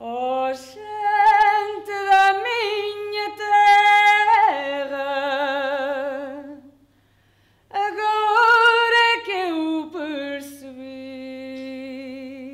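A woman singing unaccompanied, a slow melody of long held notes with vibrato, in two phrases with a pause of about a second between them.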